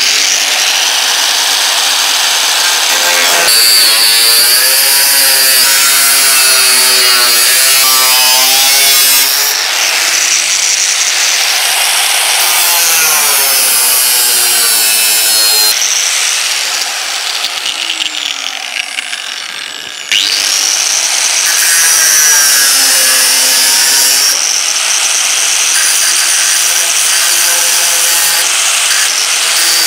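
Angle grinder working sheet metal: a harsh grinding hiss with a motor whine that wavers in pitch as the disc bites and eases. The sound dips and thins a little past halfway, then comes back at full strength.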